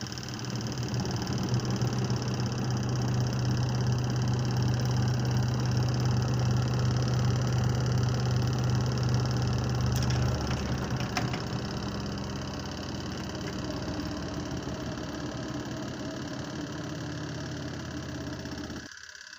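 Washing machine spin-dryer motor running with a steady hum, changing in tone about ten seconds in and cutting off suddenly near the end.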